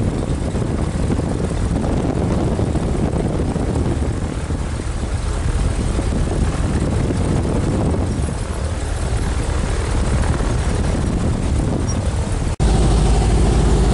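Maule MX-7's piston engine and propeller running steadily while the plane taxis, heard from inside the cabin. Near the end the sound drops out for an instant and comes back louder and steadier.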